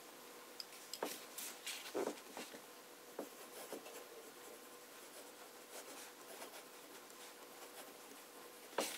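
Medium fountain pen nib scratching faintly across notebook paper as cursive letters are written: a string of short soft strokes, busiest in the first few seconds. A faint steady hum runs underneath.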